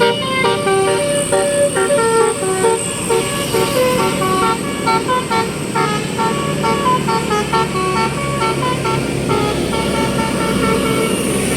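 A bus's 'telolet basuri' musical air horn playing a fast tune of short, stepped notes, over a low, steady engine rumble.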